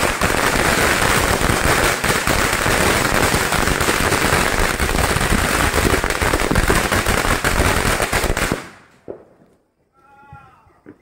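A 1000-shot firecracker string going off: hundreds of small bangs in a dense, continuous crackle for about eight and a half seconds, then stopping abruptly as the string burns out.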